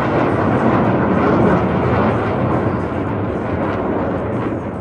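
Military jet aircraft flying past, its engine noise swelling about a second and a half in and then slowly fading.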